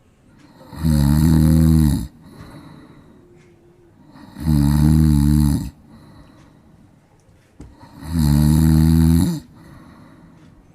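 A sleeping cat snoring: three long, loud snores about three and a half seconds apart, each lasting a bit over a second, with quiet breaths between.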